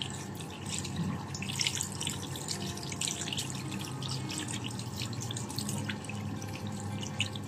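Water running from a sink tap and splashing as a wet kitten is rinsed under the stream.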